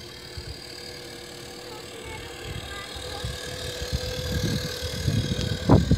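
1:10 scale RC Tatra 148 model truck running as it drives through sand: a steady thin whine from its drive motor and gears, getting louder as it comes closer. A low rumble builds on the microphone over the last second.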